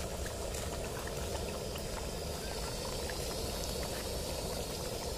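Whole chicken deep-frying in hot oil in an iron wok: a steady sizzle and bubbling with faint scattered pops, over a low steady rumble.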